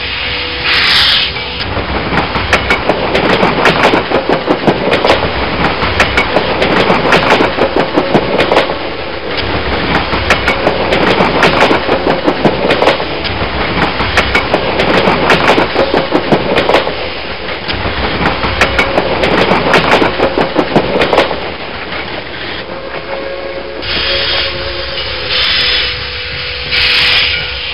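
Steam locomotive chugging, a fast rhythmic hissing chuff with wheel clatter, swelling and easing in waves and dropping lower after about twenty seconds.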